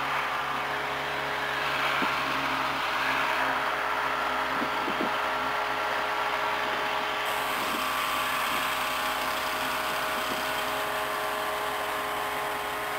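Single-engine light aircraft's piston engine idling while the plane taxis, a steady even drone with propeller hum heard from inside the cockpit.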